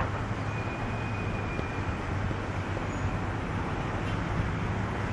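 Steady low engine hum under a constant rushing outdoor noise, unchanging throughout.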